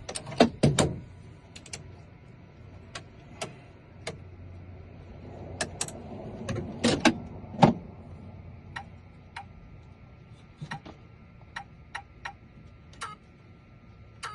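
Irregular sharp clicks and knocks of tools and metal parts being handled, with a cluster about a second in and another around the middle, over a faint steady high hum.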